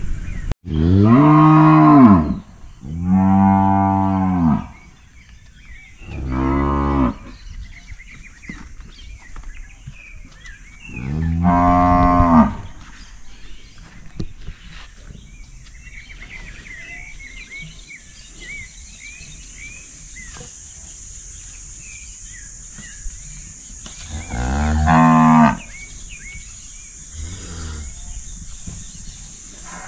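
Cattle mooing repeatedly: five loud, long moos, each rising and then falling in pitch, four close together in the first half and one more after a long pause, then a fainter moo near the end.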